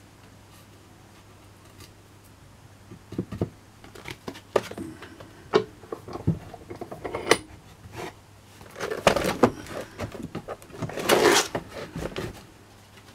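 Irregular knocks and clatter of pallet wood being handled on a workbench, with a sheet of coarse 60-grit sandpaper rustling and crackling. It starts about three seconds in, and there are two louder spells of rustling near the end.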